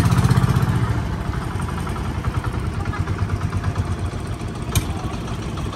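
Small outrigger boat's engine running with a fast, even putter as it tows a floating raft, loudest at first and then settling a little lower as it passes. A brief click about five seconds in.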